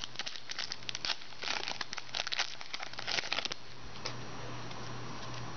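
Foil trading-card pack being torn open and crinkled in the hands, a dense crackling that stops about three and a half seconds in. A low steady hum sits underneath.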